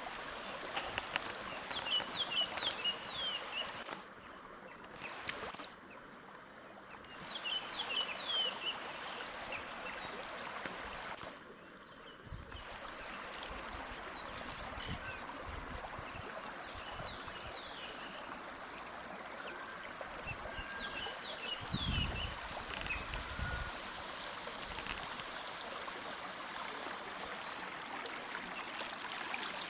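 A small creek babbling steadily over stones, with a songbird calling in several short runs of quick, falling chirps. About three-quarters of the way through there is a brief low rumble.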